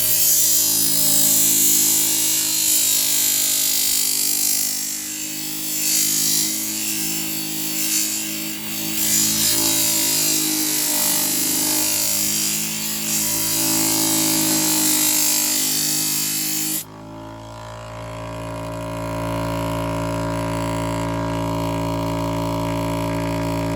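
A knife blade being ground on the running scissor-sharpening machine's abrasive: a loud, steady hissing grind over the motor's hum. About seventeen seconds in, the grinding stops suddenly and the motor hums on alone.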